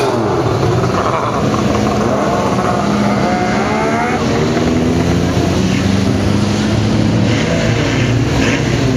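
Engines of several classic cars running and revving as they pull away one after another, with rising engine notes as each accelerates during the first few seconds over a steady low engine hum.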